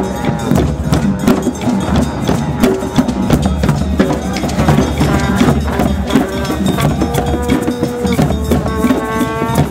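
Drum circle: many hand drums, djembes among them, played together in a fast, busy rhythm with sharp clacking strokes. In the second half a few held pitched notes sound over the drumming.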